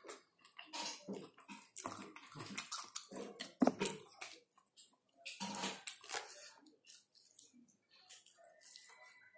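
Close-up wet chewing and lip-smacking of a person eating rice and meat by hand, with irregular squelching clicks from the mouth and fingers in the rice.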